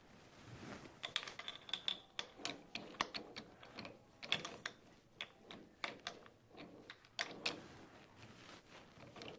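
Irregular run of sharp metallic clicks and clinks, a few per second, from small metal parts or tools being handled; no machine is running.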